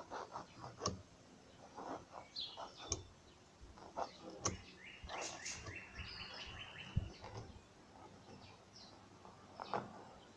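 Birds chirping, with a quick run of repeated notes about halfway through, among scattered soft taps and scratches of a hand working on a sheet of spray-painted paper.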